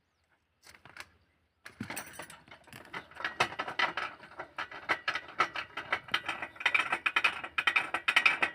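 A few separate clicks, then, about two seconds in, a mechanism starts a dense, irregular rattling of rapid clicks that keeps going.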